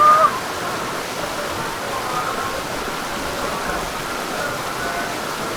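Rushing water of the Ganga river, a steady hiss of flowing water around the raft.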